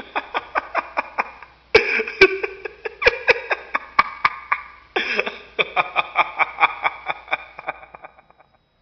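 A person laughing hard in quick, rhythmic ha-ha bursts, three bouts of laughter that each trail off, the last fading out near the end.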